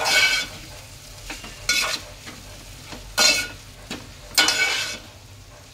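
A metal spoon stirring thick masala in an aluminium pot on the stove, scraping the pot in four strokes about a second and a half apart, over a low sizzle of frying.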